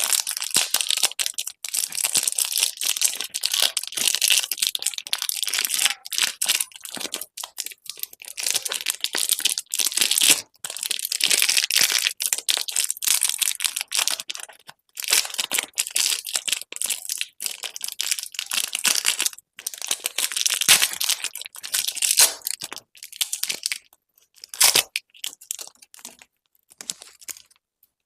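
Candy wrappers and packaging being crinkled and torn open, a dense crackle in bursts with short pauses between them, stopping shortly before the end.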